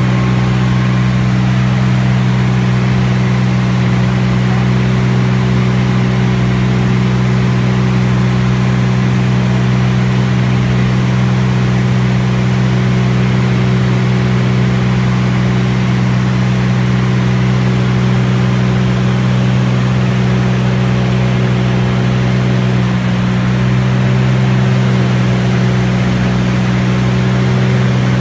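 Steady, loud drone of a T-34 Mentor's engine and propeller in flight, heard from on board, with a slight shift in pitch about 23 seconds in.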